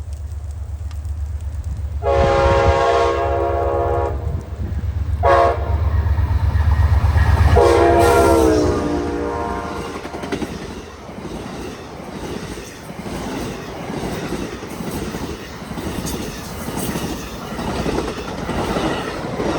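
Amtrak P42DC diesel locomotive sounding its horn as it passes: a long blast, a short blast, then a final long blast that drops in pitch as the locomotive goes by, over the heavy rumble of its diesel engine. This is the end of a grade-crossing warning signal. The passenger cars then follow with a rhythmic clickety-clack over the rail joints that slowly fades.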